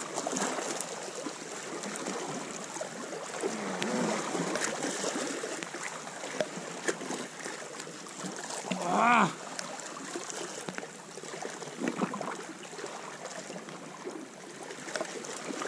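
Sea water lapping and washing against rocks, a steady noisy wash. About nine seconds in, a short pitched vocal sound, rising then falling, is the loudest moment.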